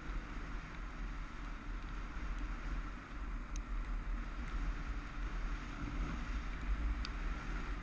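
Motorcycle running steadily at speed over a gravel road, with heavy wind buffeting on the microphone. A couple of sharp ticks about halfway through and near the end.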